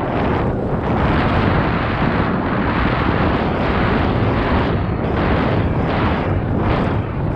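Wind buffeting an action camera's microphone as a mountain bike rolls along a paved path: a loud, steady rush that swells and dips in gusts.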